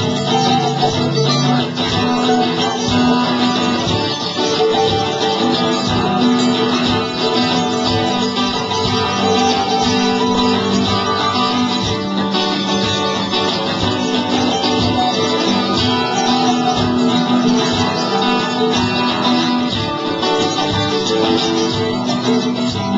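Live folk-punk band playing an instrumental passage between verses, led by strummed guitar.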